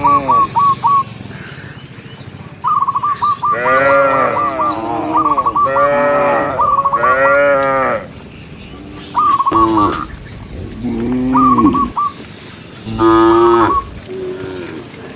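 Cows mooing repeatedly, one long call after another, with some calls overlapping. Between the moos, a quick, high stuttering trill comes back several times.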